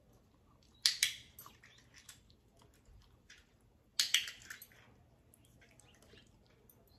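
Handheld dog-training clicker clicked twice, about three seconds apart, each a quick double click. It is the marker signal for the moment the puppy is touched, telling him a treat is coming.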